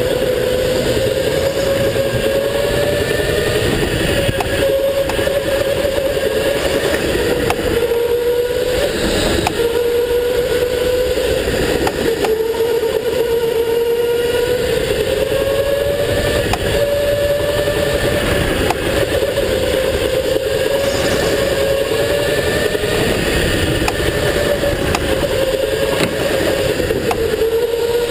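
Go-kart motor running hard through a lap, its pitch rising and falling every few seconds as the kart speeds up and slows for the turns.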